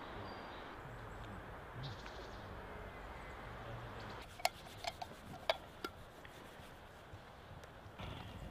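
Steady low outdoor ambience, then a handful of sharp metallic clicks and clinks of soldiers' equipment being handled, about four to six seconds in.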